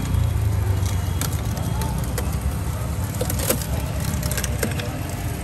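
Battery-powered electric sugarcane juice machine running, its rollers crushing a stalk of sugarcane: a steady low motor hum with scattered sharp cracks as the cane is crushed.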